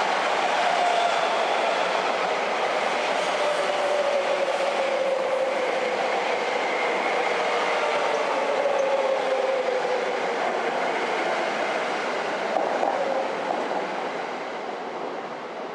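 White JR limited-express electric train running in close by, its wheels clattering over the rail joints, with a motor whine that slowly falls in pitch as it slows. The noise eases off near the end.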